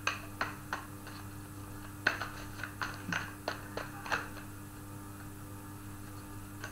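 Tarot cards being shuffled and handled by hand on a table: a run of sharp snaps and taps over the first four seconds or so, over a faint steady electrical hum.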